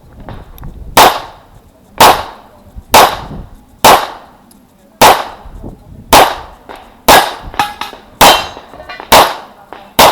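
9mm CZ Shadow 2 pistol firing ten shots at a steady pace of about one a second, each a loud, sharp crack with a short ringing tail. Two fainter sharp sounds come between the seventh and eighth shots.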